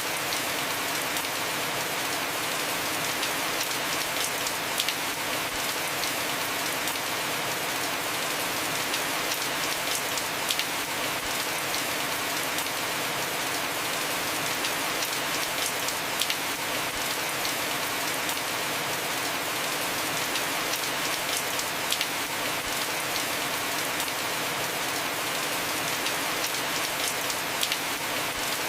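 Heavy, steady rain falling on a roof, a dense even hiss with many sharp drop ticks scattered through it.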